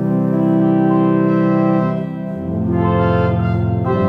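Pipe organ's Principal 8' stop, the organ's main register, playing sustained chords. The chord changes about two seconds in, adding a lower bass, and changes again near the end.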